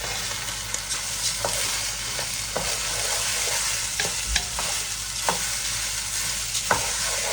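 Rice and onions sizzling as they fry in oil in a large pot, with a spoon knocking and scraping against the pot about once a second as they are stirred; the rice is browning.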